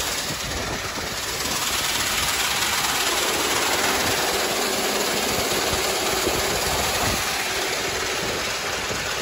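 Small petrol engine driving a grain auger, running steadily, while canola seed pours from a truck bin's outlet into the auger hopper with a steady hiss.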